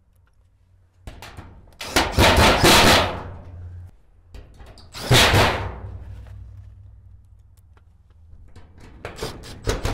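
Cordless drill-driver running in several short bursts, driving screws through the steel gable piece into the shed's wall channel, with a fast rattle from the metal sheeting.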